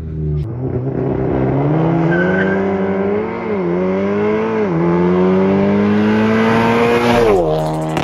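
Volkswagen Golf 7.5 R's stage 2 tuned 2.0-litre turbocharged four-cylinder, with downpipe and full exhaust, accelerating hard through the gears. The engine note climbs, drops sharply at two upshifts about three and a half and four and a half seconds in, climbs again, then falls away as the throttle is lifted near the end.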